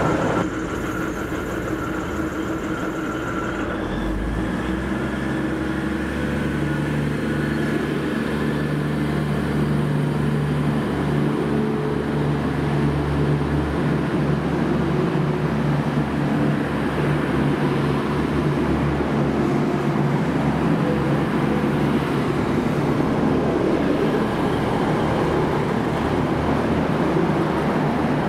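Two coupled V/Line VLocity diesel multiple units pulling out of the platform and passing close by: a steady diesel engine hum that strengthens about four seconds in, with the running noise of the cars on the rails slowly building.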